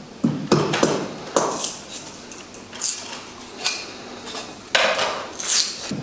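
Kitchenware clattering: irregular sharp knocks and clinks, with a longer scraping rattle near the end.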